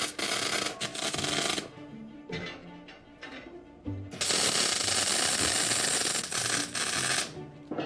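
Electric arc welding on steel bars: a crackling, sizzling hiss in two bursts, one about a second and a half long at the start and a longer one of about three seconds from about four seconds in, with short spits between.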